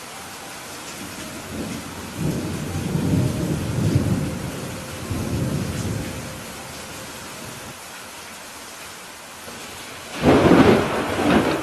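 Steady rain falling through a thunderstorm. A low rolling rumble of thunder swells from about two seconds in and fades by about six seconds. A louder, sharper thunderclap comes near the end.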